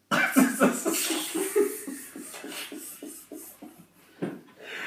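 A man laughing hard: a quick run of short bursts, about four a second, that starts suddenly and fades out over a few seconds.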